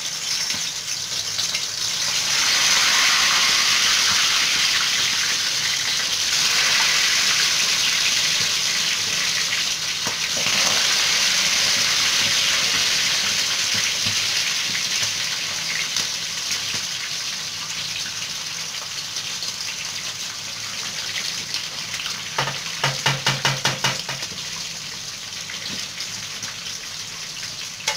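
Mumbar (rice-stuffed intestine) frying in hot oil in a pan: a steady, loud sizzling hiss that eases somewhat in the second half. A brief rapid rattle of clicks comes about four-fifths of the way through.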